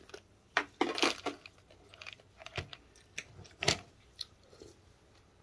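Eating sounds up close: a person chewing food, with several irregular short clicks and smacks, some of them likely utensils touching the bowl.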